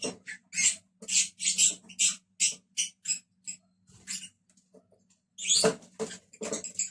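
Pet lovebirds chirping in short, shrill squeaks, two or three a second, falling silent for about a second past the four-second mark before a louder flurry of calls.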